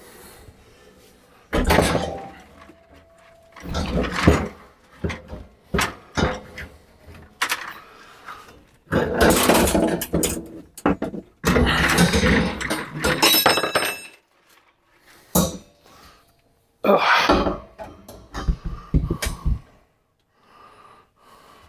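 Close handling noise of a camera being moved and set against a metal wire grid wall: irregular knocks, scrapes and rattles, with a few metal clinks.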